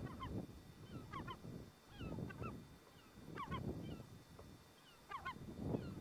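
Small flock of emperor geese calling: short honking notes in quick clusters of two or three, repeated every second or so. Low rumbling gusts of wind noise come and go between them.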